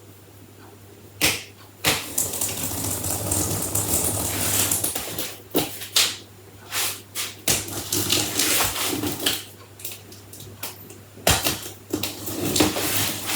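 Utility knife slicing the packing tape on a large cardboard box, with scratchy cutting and tearing noise and sharp knocks and taps of the knife and hands on the cardboard.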